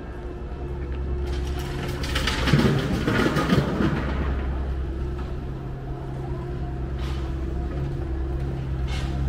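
A vehicle engine runs steadily in street traffic as a low, even hum. A louder rush of noise swells and fades about two to four seconds in, as of a vehicle passing close by.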